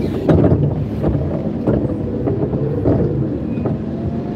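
Forklift running while being driven: a steady low drone broken by several sharp knocks and rattles.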